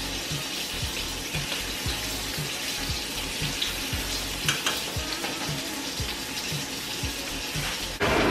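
Food sizzling steadily in frying pans on an electric stove, with a soft low beat about twice a second under it and a couple of sharp clicks about halfway through.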